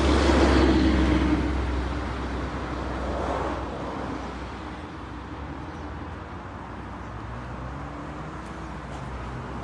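Motor vehicle traffic noise: a loud hum fades away over the first few seconds, then settles to a quieter, steady traffic hum.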